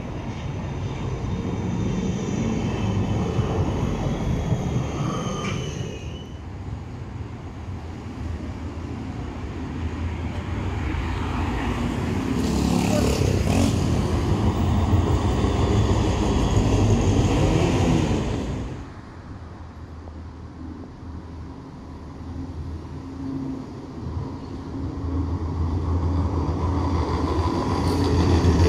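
Light rail trams passing on street track, mixed with road traffic. A high electric whine from the tram runs through the first few seconds, the rumble swells to its loudest in the middle, then falls away suddenly and builds again near the end.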